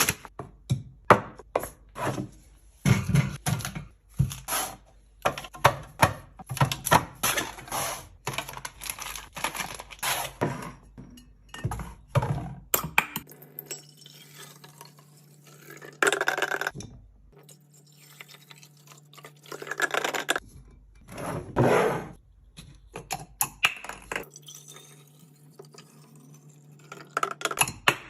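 Containers and packaged items being handled and set down while a fridge or shelf is restocked: quick clinks, taps and knocks, many in quick succession at first, then fewer, louder handling sounds about halfway through.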